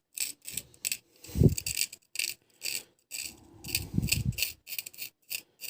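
A small knife scraping the burnt graphite washers of an electric sewing-machine foot pedal's carbon-pile speed control, in short repeated strokes about two or three a second. The burnt contact faces no longer pass current, so they are being scraped clean. Two duller knocks of handling come about a second and a half in and again around four seconds.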